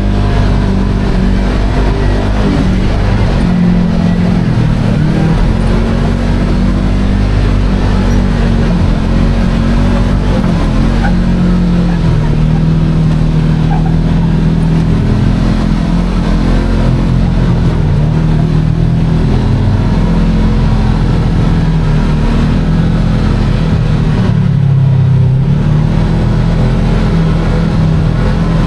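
Kawasaki Teryx KRX 1000 side-by-side's parallel-twin engine running under changing throttle as it is driven over slickrock, heard from inside the cab. The engine note rises and falls slowly and drops briefly near the end, as if the throttle is eased off.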